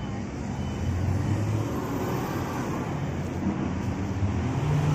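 Steady low rumble and hum of outdoor background noise, of the kind traffic makes.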